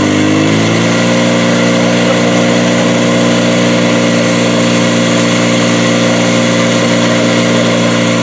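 Portable fire pump's engine running at high revs under load, pumping water through the hoses to the jets; its pitch climbs during the first second, then holds steady.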